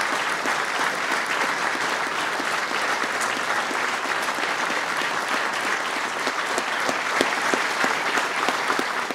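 Audience applauding steadily: many hands clapping at once, a dense continuous patter of claps.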